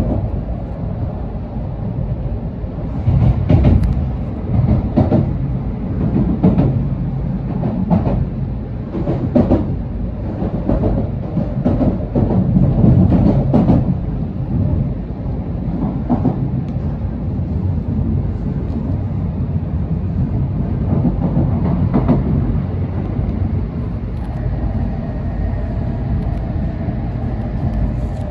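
Inside an N700S Shinkansen car running through a city: a steady rumble of wheels on rail with irregular clacks and knocks as the bogies cross joints and points. The rumble grows steadier about halfway through, and a faint steady whine comes in near the end as the train approaches a station.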